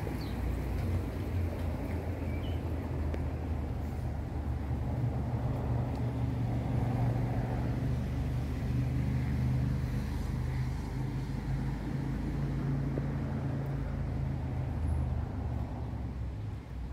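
A motor vehicle's engine running close by with a low, steady rumble, growing louder through the middle and easing off near the end.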